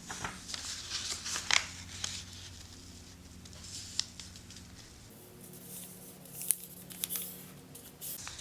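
A sheet of origami paper being folded and creased by hand: light crinkling rustles with a few sharp clicks as the crease is pressed down.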